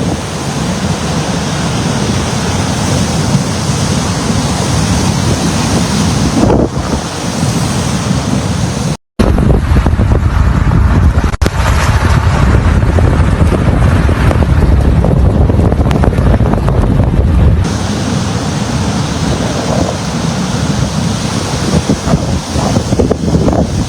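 Strong wind buffeting the microphone in a snowstorm, a steady rushing noise with gusts. After a brief cut to silence about nine seconds in, a second clip has heavier, deeper buffeting for several seconds before the first kind of wind noise returns.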